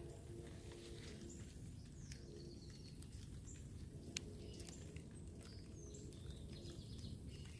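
Faint, scattered bird chirps over a low steady background rumble, with a single sharp click about four seconds in.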